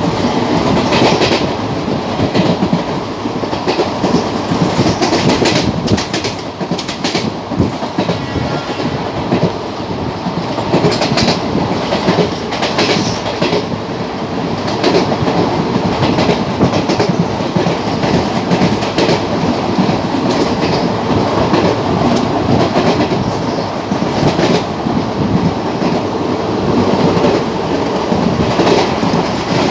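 Express train running at speed, heard from a passenger coach window: a steady rumble and rush of wheels on the track, with irregular clacks over the rail joints.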